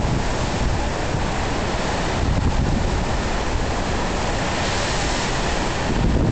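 Storm wind blowing hard across the microphone, with a heavy low rumble, mixed with the rush of wind-driven waves on a river. The noise is loud and steady throughout.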